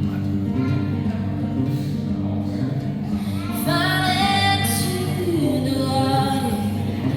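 A song performed live: steady instrumental accompaniment, with a woman's singing voice coming in about halfway through.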